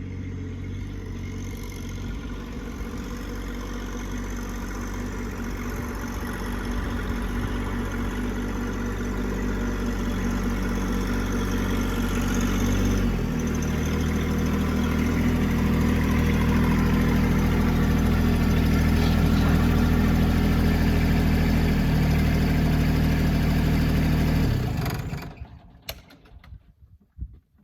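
A motor vehicle engine running steadily, growing louder and shifting its note about halfway through and again a little later, then switched off about 25 seconds in.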